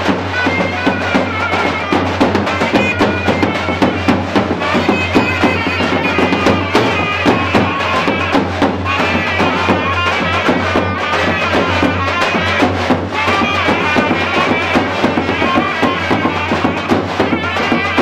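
Live Turkish folk dance music: a high, wavering melody line over a fast, dense drum beat.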